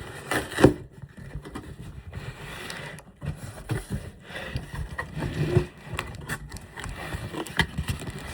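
Cardboard shipping box being cut and pulled open by hand: irregular scraping, rustling and sharp clicks of cardboard and packing tape.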